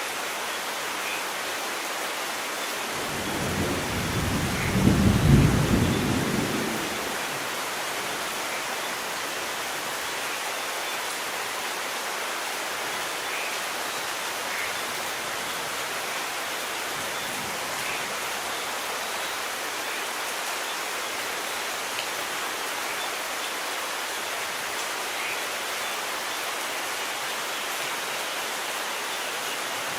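Steady rain falling, with one roll of thunder that swells a few seconds in, peaks after about five seconds and rumbles away within a couple of seconds.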